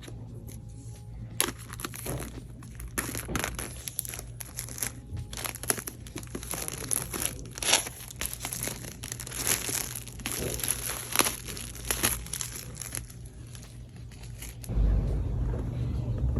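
Crinkling and crackling of product packaging being handled and opened, in many irregular bursts. A steady low rumble sets in near the end.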